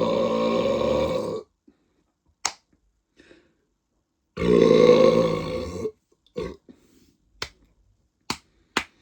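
A man burping long and loud after drinking carbonated lemonade. One burp trails off about a second and a half in, and another of about a second and a half starts around four seconds in. Short, sharp clicks fall between and after them.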